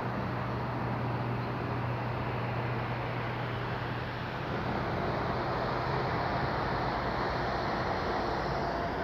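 Steady drone of vehicle or engine noise carrying up from the street below, an even rumble with a low hum running through it.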